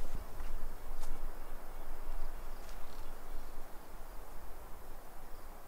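Outdoor ambience: a low, uneven rumble on the microphone as the camera is swung around and handled, with faint insects in the background and a couple of light ticks.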